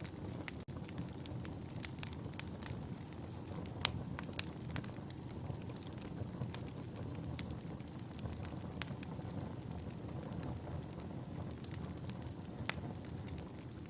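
Fire burning in a fireplace: a steady low rumble of flames with irregular sharp crackles and pops, the sharpest about four seconds in. The sound drops out for a moment just under a second in.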